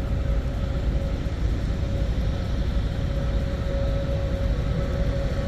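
Airbus A321neo's turbofan engines running at idle, a steady rumble with a constant whine over it.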